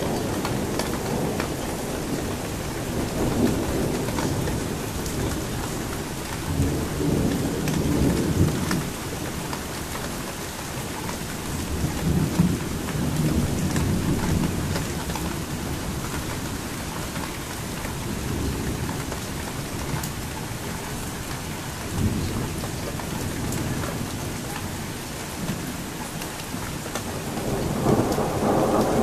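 Thunderstorm: steady hiss of heavy rain with repeated low rolls of thunder rumbling every few seconds, and a louder roll building near the end.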